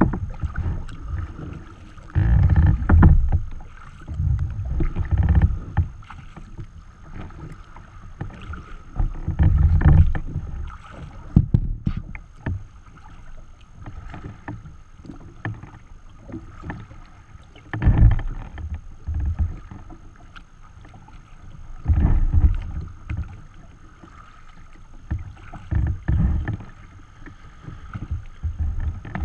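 Water splashing and slapping against a sea kayak's hull as it is paddled through choppy water, with wind buffeting the microphone. The sound comes in uneven low surges every few seconds over a steady rush.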